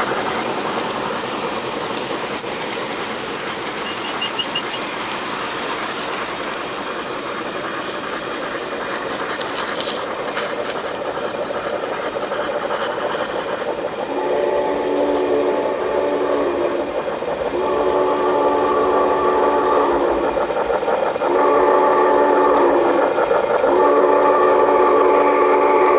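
A large-scale garden-railway train running on its track with a steady noisy rumble, then the model steam locomotive's sound unit blowing a chime whistle four times about halfway through: long, long, short, long, the grade-crossing signal.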